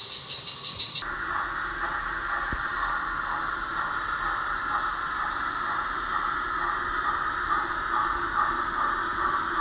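Roundhouse Bertie 16mm-scale live steam locomotive in steam, giving a steady hiss of steam and exhaust. The sound changes abruptly about a second in, then stays even.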